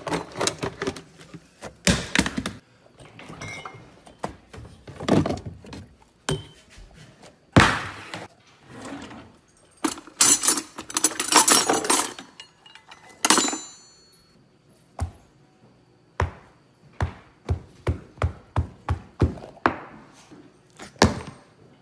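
Household kitchen handling sounds: glass jars clunking as they are moved on a shelf, then metal cutlery rattling and clinking in a drawer about ten seconds in, ending in a ringing metal clink. Toward the end comes a run of short knocks, about two a second.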